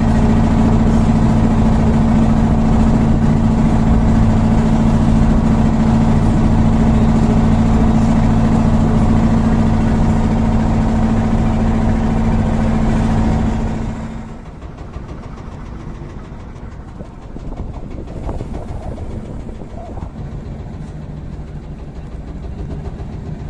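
Boat engine running loud and steady under way, then throttled back about fourteen seconds in to a much quieter, lower idle.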